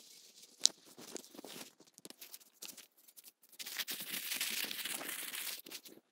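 Ultralight tent being taken apart by hand: a sharp click about half a second in, scattered rustles, then about two seconds of continuous crinkling as the inner mesh body is gathered and pulled out from under the Dyneema (DCF) fly.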